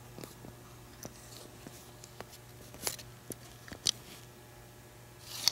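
Soft vinyl cat squeeze toy being handled: scattered light clicks and taps of fingers on the vinyl, then a louder, breathy rush of air near the end as the toy is squeezed.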